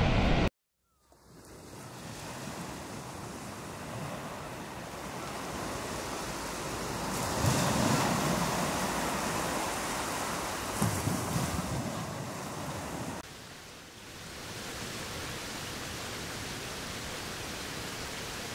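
Rushing sea surf and wind blowing across the microphone. It fades in after a short silence, swells twice in louder gusts around the middle, then continues as a steadier wind rush after a cut.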